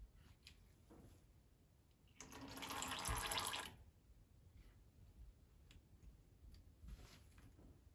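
Hydraulic oil draining from a cylinder in a thin trickle, with faint drips and clicks. About two seconds in comes a louder rushing burst that lasts about a second and a half.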